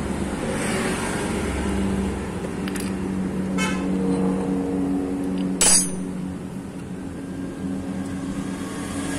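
Steady hum of a motor vehicle engine, with light metallic clicks and one sharp clack a little past the middle as a scooter's CVT front drive pulley is worked off its crankshaft by hand.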